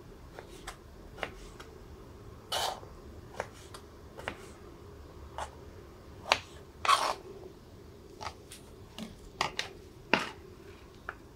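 Kitchen knife cutting broccoli stems on a plastic cutting board: irregular knocks of the blade on the board and a few short crunchy slicing strokes, the loudest from about six to ten seconds in.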